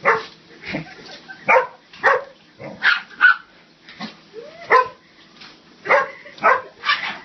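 A Labrador retriever puppy and a rat terrier playing, letting out about a dozen short, sharp barks and play sneezes in quick succession.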